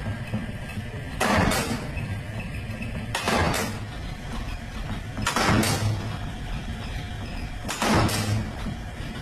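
Die-cutting press stamping football panels out of layered panel sheet: four short heavy strokes about two seconds apart, with the machine's steady low hum between them.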